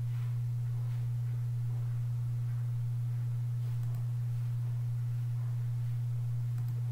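Steady low electrical hum, a single unchanging tone, with a few faint mouse clicks.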